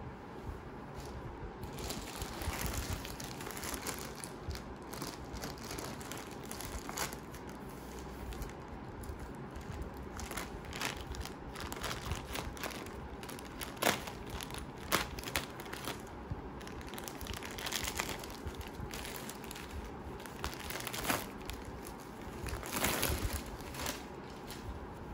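Packaging crinkling and rustling as it is handled, in irregular bursts with a few sharper crackles.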